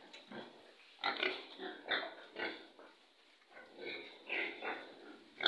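Pigs grunting in a pen, a series of short irregular calls that come in clusters about a second in, around two seconds and again around four seconds.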